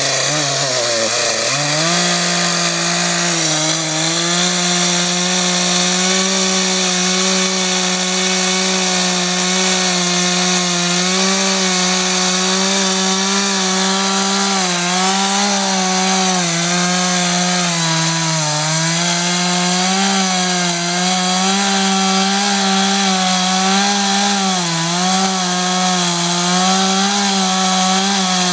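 Chainsaw revving up to full throttle about a second in and cutting into a standing tree trunk. The engine holds a steady high pitch that dips briefly a few times as the chain works through the wood.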